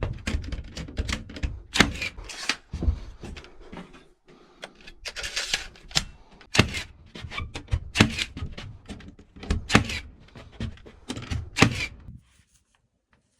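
Plywood flooring being nailed down: a run of irregular, sharp knocks, each with a low thud, that stops about twelve seconds in.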